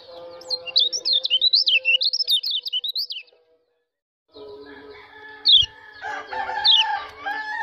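White-eye (pleci) twittering a fast run of high chirps that rise and fall, cutting off abruptly after about three seconds. After a second of silence, a few sharp falling chirps return over a bed of steady tones. These are 'ciakan' calls, played to stir a white-eye's mating drive.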